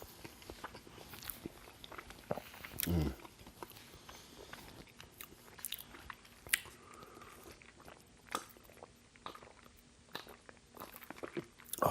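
Close-miked chewing of a mouthful of burger: soft, wet mouth clicks and smacks, with a short low hum about three seconds in.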